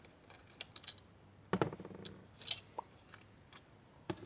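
Small clicks and light knocks from a handheld digital multimeter's plastic case being handled as it is taken apart, with one sharper knock about a second and a half in.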